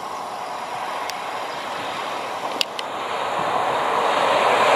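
InterCity 125 High Speed Train approaching, its leading Class 43 diesel power car and wheels on the rails growing steadily louder as it nears. A few sharp clicks sound about a second in and again twice midway.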